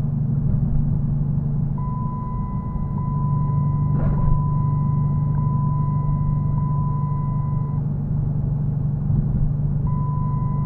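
2014 Dodge Challenger R/T seat-belt warning chime beeping on and on: a run of back-to-back beeps, each about a second long, from about two seconds in until about eight seconds in, starting again near the end. It is the reminder that the driver's belt is unbuckled. Under it runs the steady low hum of the car moving.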